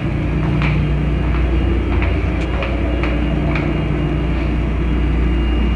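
Steady low drone of a cruise ship's machinery and ventilation below deck, with light footsteps about two a second.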